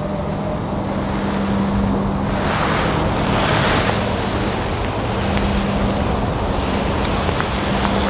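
Wind buffeting the microphone with a heavy low rumble, and gusts rushing that swell about two seconds in and again near the end.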